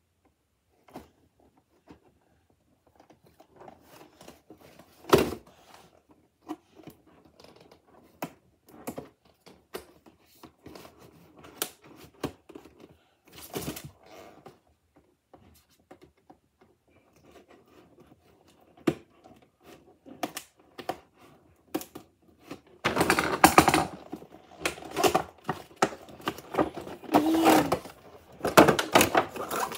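Cardboard and plastic toy packaging being opened with scissors: scattered sharp snips, clicks and taps, one loud snap about five seconds in. Near the end it gets louder and denser, with plastic rustling and crinkling as the box is handled, and a brief squeak.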